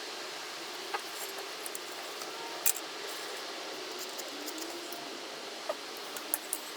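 A few short, light clicks and clinks of small objects being handled, spread out over a steady background hiss; the sharpest comes a little under 3 seconds in.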